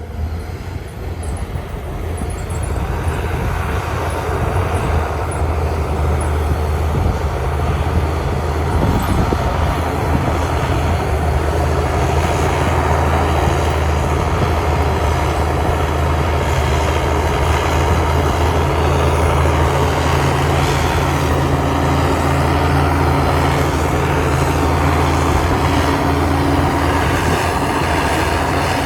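Heavy diesel engine of earthmoving machinery running steadily, a low drone that grows louder over the first few seconds and then holds.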